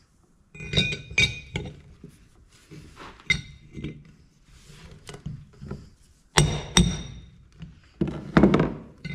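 Steel hand tools and metal parts clinking and knocking on metal, a string of sharp ringing clicks, then two heavy blows about six and a half seconds in and a few more strikes near the end.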